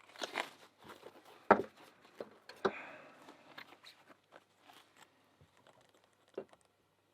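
Handling noise from thick rubber drysuit gloves working small lock parts, with crinkling and rubbing and two sharp knocks, the louder about a second and a half in.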